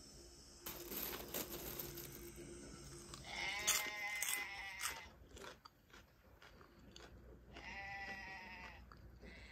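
Goats bleating: two long wavering bleats, the first about three seconds in and the second near the end, after a crunching rustle at the start.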